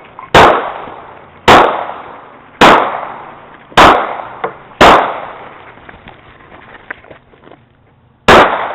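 Handgun shots fired in a drill: five shots about a second apart, then a pause, then a sixth shot near the end. Each shot is followed by a short echo that dies away.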